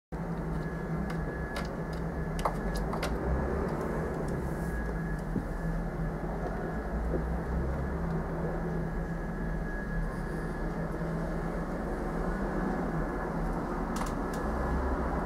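A steady low mechanical hum with a thin, faint high whine running through it. A few light clicks come between about one and three seconds in, and again near the end.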